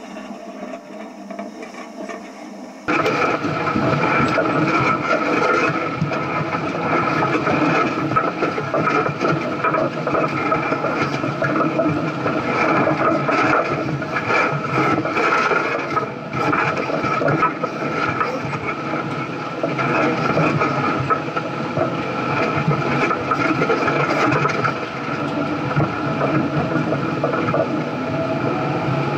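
4x4 off-road vehicle's engine running under load as it crawls over rock, loud and rough with a steady whine through it, starting abruptly about three seconds in.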